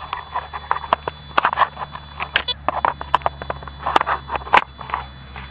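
Soil being scraped and crunched back into a small hole to bury a test coin: an irregular string of gritty crunches and sharp clicks, with the loudest pair about four seconds in.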